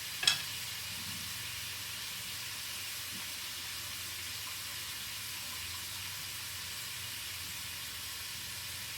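Diced chicken breast frying in sesame oil in a skillet, a steady sizzling hiss, with one sharp clack just after the start.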